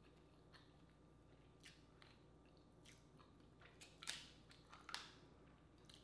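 Quiet close-up eating sounds: faint clicks and smacks of chewing, then a few sharp cracks about four and five seconds in as a sauce-coated Dungeness crab's shell is pulled apart by hand.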